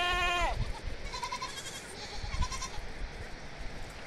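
Goats in a herd bleating: one clear bleat at the very start that drops in pitch as it ends, then fainter, quavering bleats from other goats.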